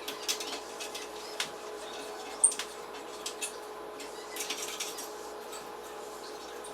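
Light metallic clicks and taps of small parts and tools being handled, scattered through, the sharpest about two and a half seconds in, over a faint steady hum.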